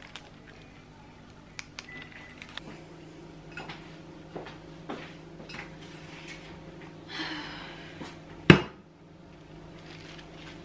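Kitchen handling noises: scattered light clicks and knocks over a faint steady hum, a short rustle about seven seconds in, and one sharp knock about eight and a half seconds in.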